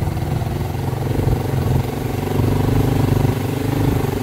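Motorcycle engine running steadily while under way, a little louder from about halfway through.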